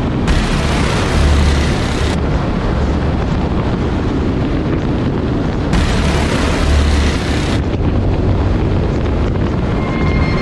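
Wind buffeting the microphone on a moving Indian FTR S motorcycle, mixed with the engine and road noise at cruising speed. The hiss swells twice, about a second in and again around six seconds in.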